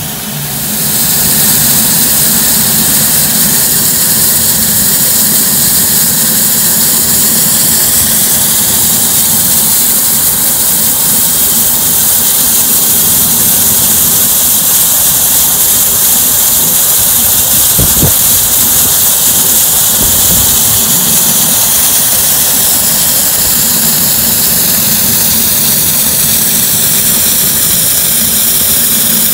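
LMS Stanier Black Five 4-6-0 steam locomotive 44871 standing with steam venting: a loud, steady hiss that swells about a second in and then holds.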